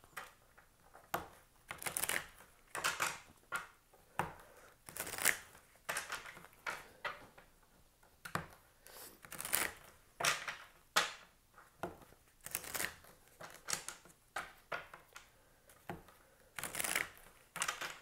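A tarot deck being shuffled by hand: a run of short papery swishes and slaps, about two a second and uneven in loudness.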